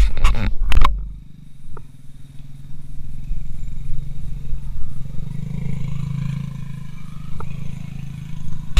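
Sharp knocks and rustles in the first second as a hooked fish is grabbed off the line, then a small engine's steady low hum that grows louder towards the middle and eases off near the end.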